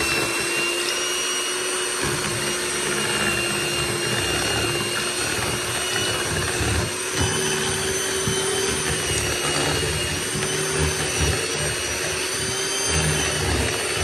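Electric hand mixer running at steady speed, its beaters whisking casting investment slurry in a plastic tub: a steady motor whine over an uneven low churning.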